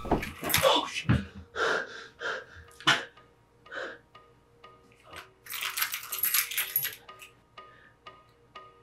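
A set of metal keys jingling in a hand, the jangle loudest over a second or so past the middle, with a faint steady music drone underneath. A string of short sounds comes in the first few seconds.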